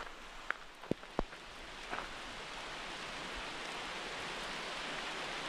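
Steady hiss of light rain falling, with a few brief sharp taps in the first two seconds.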